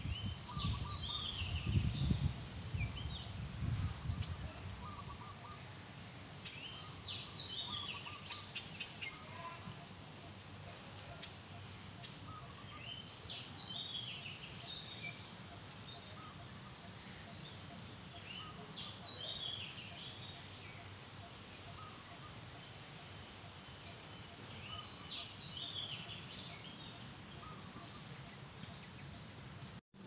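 Weaver birds chattering in short bursts of high chirps, one bout about every five to six seconds. A low rumble on the microphone comes in the first few seconds.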